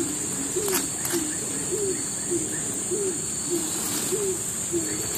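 Short, low hooting calls repeated about twice a second, over a steady high insect drone, with a few light clicks.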